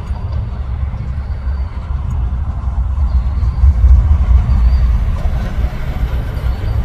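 Low rumble of traffic crossing the Interstate 10 bridge overhead, swelling to its loudest about halfway through.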